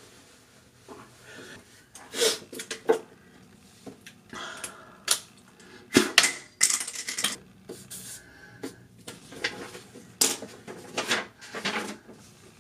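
Irregular clicks, taps and short scraping or rustling noises of small objects being handled.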